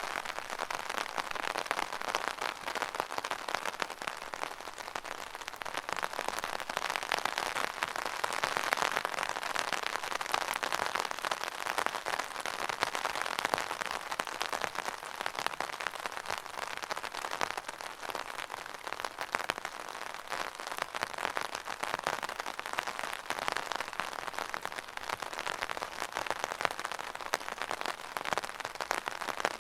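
Rain pattering steadily on an umbrella canopy: a dense, continuous spatter of small drop ticks that swells and eases slightly in waves.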